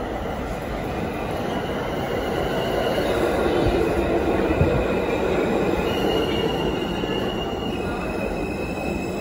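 New York City Subway R160A-2 car running, heard from inside: a steady rumble of wheels on rails. In the second half, thin high tones step down in pitch a couple of times.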